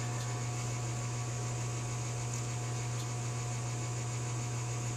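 Steady low electrical hum with a faint hiss: background room tone, with no handling sounds.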